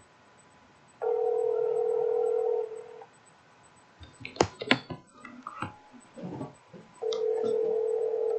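Telephone ringback tone on an outgoing call that has not been answered: two rings of about two seconds each, about four seconds apart. Between the rings come a few sharp knocks and clicks.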